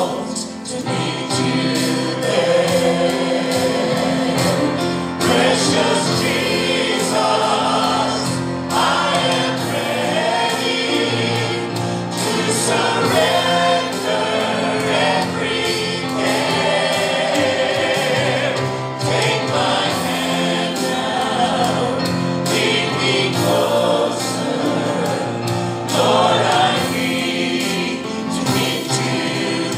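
Church choir singing a gospel song, led by soloists on microphones, over steady instrumental accompaniment.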